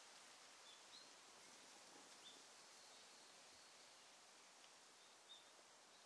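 Near silence: faint outdoor hiss with a few short, high bird chirps scattered through it.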